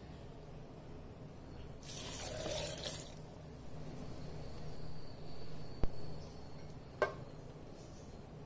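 Milk poured from a steel vessel into a steel mixer jar over cut mango, a splashing pour lasting about a second. It is followed by two sharp metallic clinks of steel vessels set down, the second ringing briefly.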